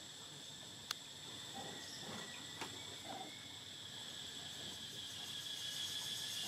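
Insects chirring in a steady, high, even drone that grows a little louder near the end, with a sharp click about a second in.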